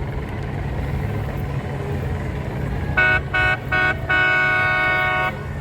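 A boat horn sounds three quick short blasts and then one long blast, over a steady low engine rumble.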